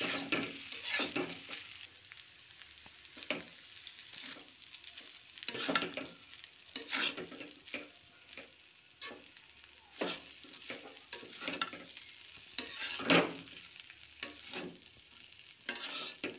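Spatula stirring and scraping damp flattened rice (poha) around a metal kadhai, in irregular strokes about one to two a second.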